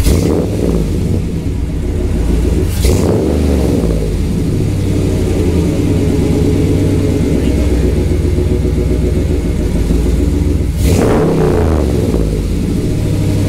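Dodge Ram's swapped 5.7 L HEMI V8 idling steadily, its revs surging briefly about three seconds in and again near eleven seconds, then falling back each time. The idle hangs high, about 950–1,000 rpm against a 750 target, because a leaking brake booster is pulling in air.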